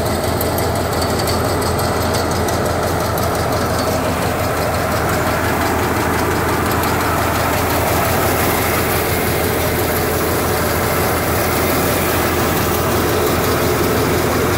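Sonalika 30x18 multicrop paddy thresher running steadily under load, driven by a 13 HP power tiller's diesel engine: a constant loud mechanical drone with a low hum underneath.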